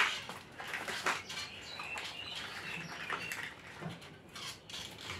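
Plastic toys knocking and clattering as a hand rummages through a cradle full of them, with a sharp knock at the very start and irregular clicks and rattles after it.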